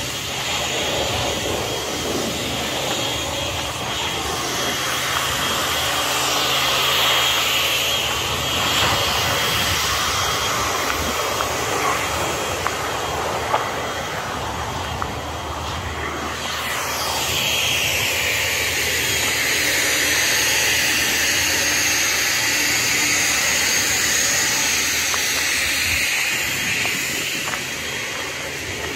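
Steady rushing engine noise of passing traffic. About halfway through it swells, with a sweeping hiss as something passes by.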